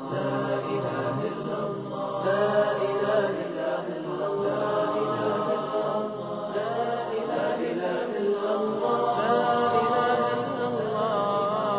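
Chanting voice singing long held notes that waver and glide up and down in pitch, most ornamented near the end.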